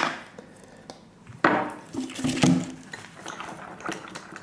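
Utensils clinking and knocking against a bowl as slime ingredients are mixed: a quiet start, then a cluster of sharp knocks and clatter from about a second and a half in, with a few lighter ticks after.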